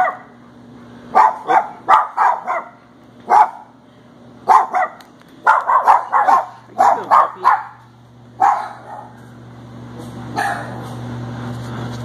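Dogs in shelter kennels barking: short barks in quick runs of three to six, on and off, with a steady low hum underneath that grows toward the end.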